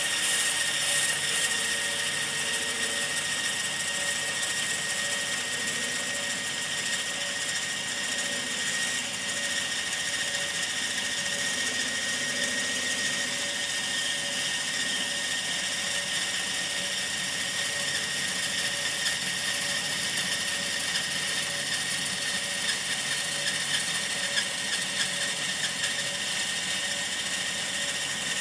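Bandsaw running steadily and ripping through a walnut blank, with a constant high whine over the cutting noise.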